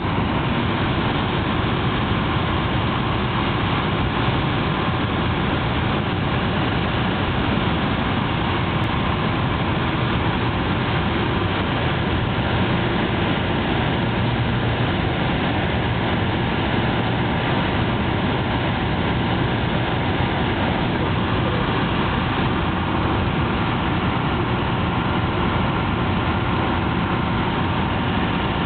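Steady drone of a Piper PA-32's six-cylinder Lycoming piston engine and propeller, heard from inside the cabin in flight, mixed with airflow noise; it holds an even level throughout.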